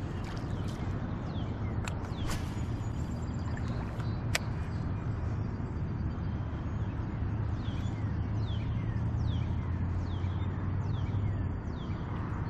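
Open-air river ambience: a steady low rumble with a few sharp clicks in the first half. From about halfway on, a bird repeats a quick falling chirp about twice a second.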